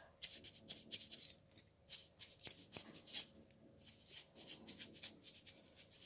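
Paintbrush dabbing and scrubbing white paint in between the scales of a pine cone: faint, quick, irregular bristly scratches and taps.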